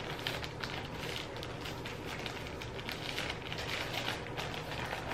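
Plastic packaging and clothes rustling and crinkling as they are handled, many small irregular crackles over a steady low hum.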